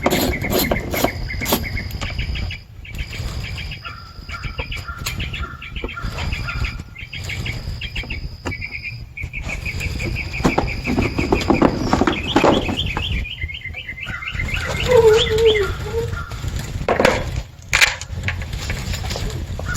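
Songbirds chirping and trilling in rapid repeated runs of notes, with scattered clicks and knocks from the plastic HVAC box being taken apart by hand.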